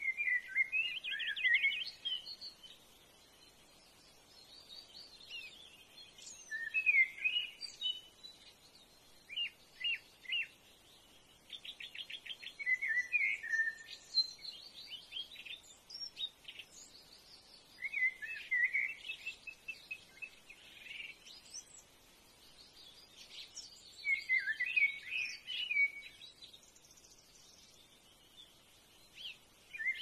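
Birds chirping and chattering in bouts every few seconds, with two rapid trills about ten and twelve seconds in.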